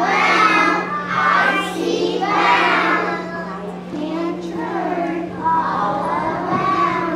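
A group of young children singing a song together on stage.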